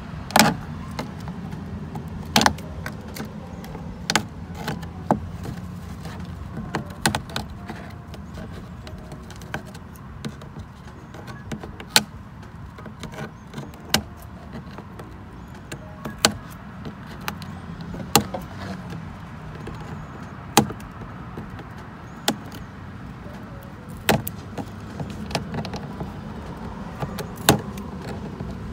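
Scissors snipping through elastic cord netting, with sharp snips every second or two over a steady low background rumble.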